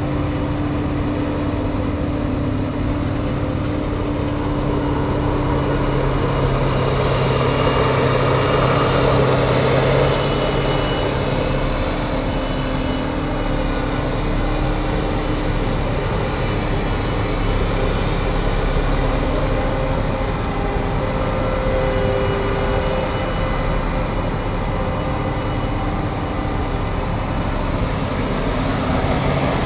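Krone BiG X 650 forage harvester running steadily under load as it chops maize, mixed with the engine of the tractor pulling the silage trailer alongside. A rushing hiss rises over the engine hum after several seconds.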